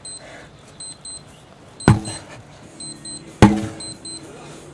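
Sledgehammer swung and struck twice, about a second and a half apart: each blow is a heavy impact followed by a short fading ring.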